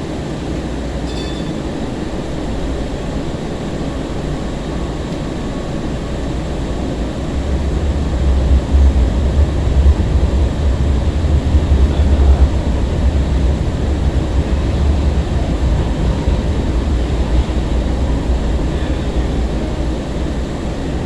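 Interior running noise of a 2002 Breda LRV light-rail car with General Electric GTO-VVVF motors travelling between stops: a steady rumble of wheels on rail that grows heavier about a third of the way in, then eases a little.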